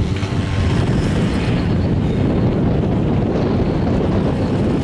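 Steady wind rumble buffeting a camcorder's microphone during a chairlift ride.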